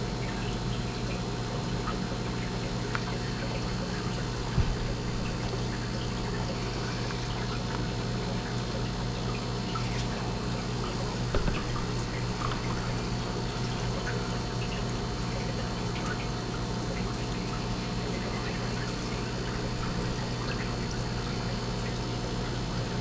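Aquarium water trickling and pouring steadily over a constant pump hum, with two light knocks about four and eleven seconds in.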